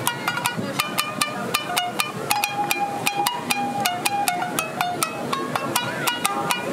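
Tsugaru shamisen played solo with a plectrum: a quick, steady run of sharp struck notes, each with a percussive snap followed by a short ringing tone.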